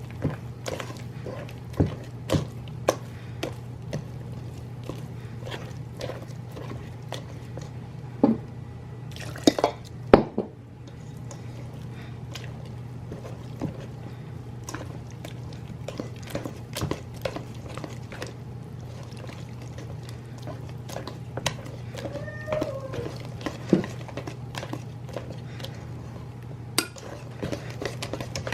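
Kitchen preparation sounds: scattered clicks and taps of utensils and dishes with wet, liquid sounds, the loudest about nine to ten seconds in, over a steady low hum.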